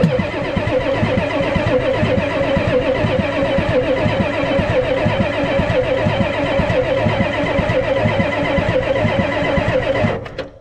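Ford 7.3 IDI V8 diesel being cranked over by its starter without firing, to purge air and pull fuel through the fuel system. The cranking is steady and rhythmic and cuts off about ten seconds in.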